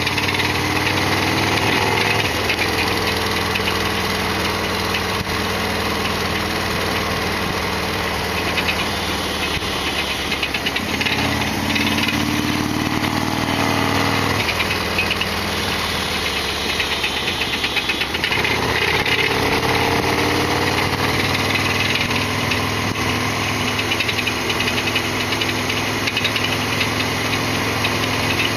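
Harley-Davidson Sportster XL1200R's air-cooled 1200 cc V-twin engine running under way, its note rising and falling several times with the throttle.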